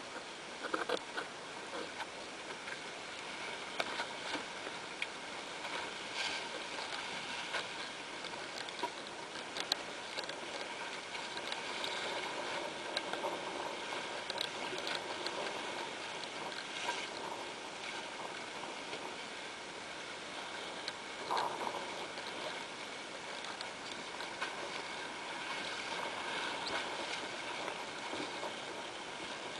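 Water rushing and splashing along the hull of a small sailing dinghy under way, with scattered brief slaps and knocks.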